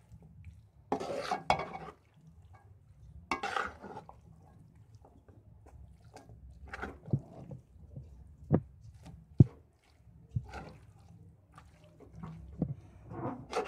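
A spatula scraping and clacking against a metal wok as spaghetti is tossed through a masala. There are two longer scrapes in the first few seconds, then scattered sharp clacks of the utensil hitting the pan.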